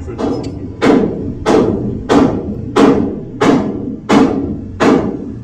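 A regular series of heavy knocks, about three every two seconds, eight in all, each ringing out briefly before the next.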